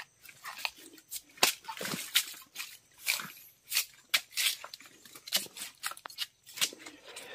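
Irregular sharp snaps, knocks and rustling as asam paya swamp palm stems are chopped with a machete and pulled apart.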